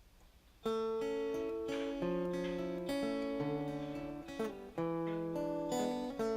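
Acoustic plucked-string instrumental intro: chords picked or strummed and left ringing, a new chord about every second, starting under a second in after a brief quiet.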